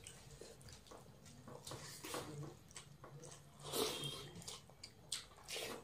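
Quiet eating sounds of people eating rice and egg curry by hand: chewing, mouth smacks and fingers squishing food, with louder smacks about four seconds in and near the end.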